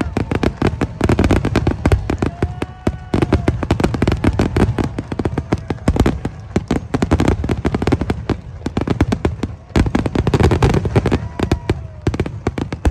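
Fireworks display going off: a dense, continuous run of rapid bangs and crackling pops, with a few short tones rising and falling among them.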